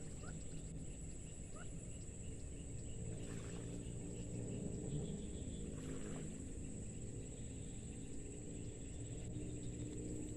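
Wind buffeting the microphone, a steady low rumble, with a thin steady high-pitched tone above it and two short rising chirps near the start.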